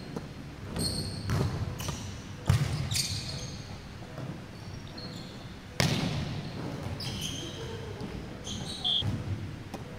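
Volleyball rally on a wooden indoor court: a few sharp smacks of the ball being hit and landing, the loudest a little past the middle, echoing in the hall, with short sneaker squeaks on the floor in between.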